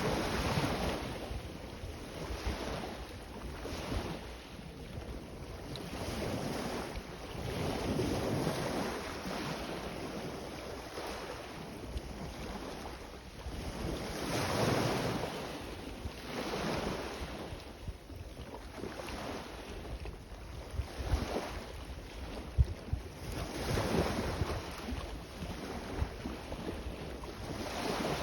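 Sea waves breaking and washing in, the surf noise swelling and easing every few seconds. Wind buffets the microphone with low rumbles, most strongly a little past the middle.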